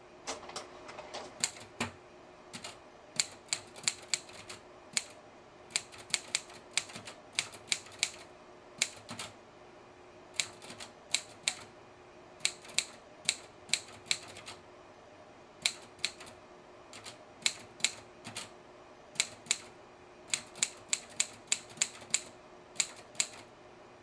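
Manual typewriter being typed on: single keystrikes hitting the paper in short, word-like runs with pauses between them, over a faint steady hum.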